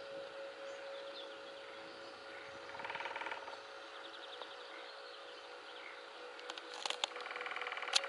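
Nuttall's woodpecker drumming on a birch tree: two bursts of machine-gun-speed hammering, a short one about three seconds in and a longer one near the end, with a few sharp single taps just before the second.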